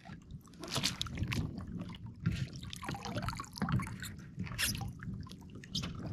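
Small waves lapping against a kayak's hull in shallow water, with irregular light splashes and drips.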